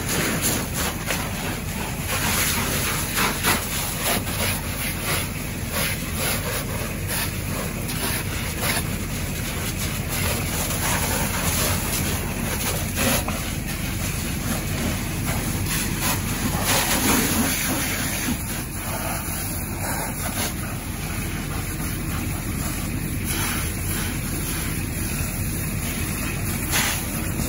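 Fire hose spraying water onto a burning car: a steady rushing hiss of water and steam over a low rumble, with a few brief crackles.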